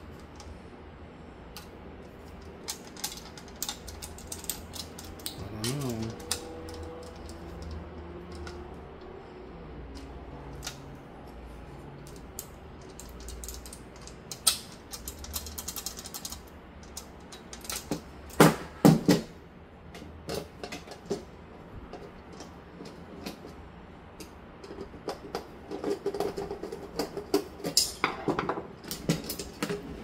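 Irregular clicks, taps and knocks of computer case parts and screws being handled and fitted, with a loud cluster of knocks about eighteen seconds in and a quick run of rattling clicks near the end.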